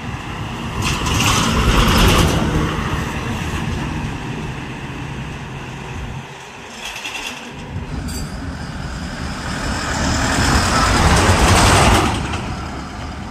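Heavy goods trucks, an Eicher among them, driving past close by on a highway: engine rumble and tyre noise swell and fade, loudest about two seconds in and again near the end.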